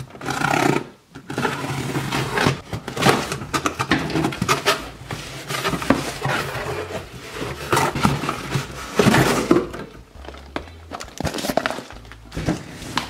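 Cardboard shipping box being opened by hand: a folding knife slits the packing tape, then the flaps are pulled back and the cardboard and paper inside are shuffled and rustled, in an uneven run of scrapes, rips and knocks that quietens near the end.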